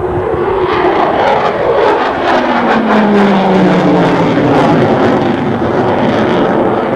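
Military jet flying past at an air show, its engine noise loud and steady, with a tone that falls in pitch about two to four seconds in as it passes overhead.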